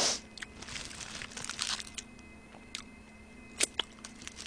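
Burger wrapper paper and foil crinkling as a half-eaten burger is handled and chewed, with irregular rustles and a few sharp clicks, the loudest about three and a half seconds in. Under it runs the faint steady hum of a room heater.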